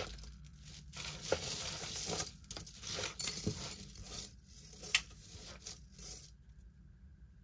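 Costume jewelry being handled and sorted: a run of rustling with light metallic clinks, one sharper clink about five seconds in. It dies away about six seconds in.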